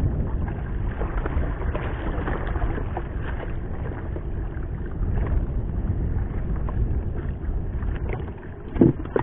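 Wind buffeting the microphone over water sloshing around a small paddled fishing boat, with a short knock on the boat just before the end.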